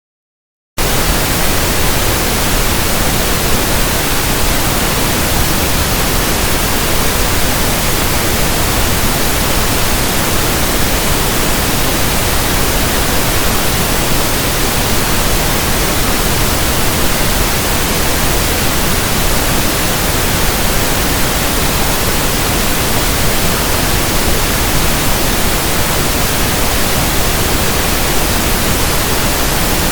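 Steady, loud generated pink noise, an even hiss that switches on abruptly under a second in after a brief silence.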